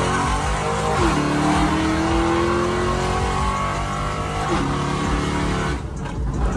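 Dodge Charger's V8 accelerating hard under full throttle, heard from inside the cabin: the engine pitch climbs steadily, drops sharply twice as it upshifts, about a second in and again past the four-second mark, then eases off near the end as the driver lifts.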